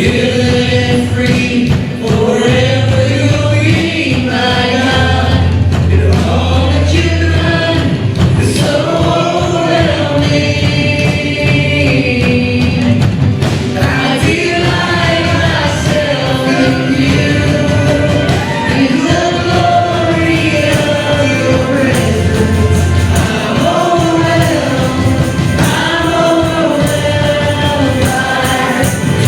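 Worship music: a band playing with voices singing a melody over it.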